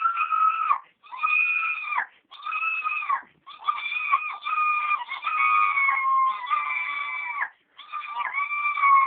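Girls' voices making high-pitched, drawn-out squealing cries in imitation of an animal. The calls come one after another, each about a second long with short breaks between them. The last ones are longer and sag slightly in pitch.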